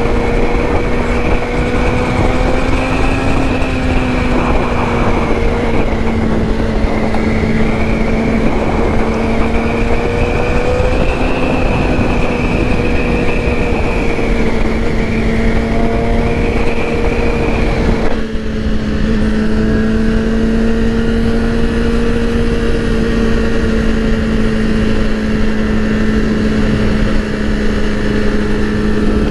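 2008 Yamaha R6's inline-four engine running at a steady, high-revving cruise, heard from the rider's seat under heavy wind rush. It eases briefly about two-thirds of the way through, then settles back to the same steady note.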